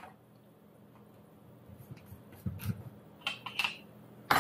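Kitchen utensils being handled over a bowl: soft scrapes and taps of a metal spoon, a brief ringing clink about three seconds in, and a sharp knock near the end as a utensil is set down, over a faint low hum.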